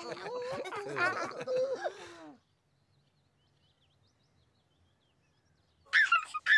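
High-pitched character voices chatter and coo without clear words for about two seconds, then stop. A baby starts giggling near the end.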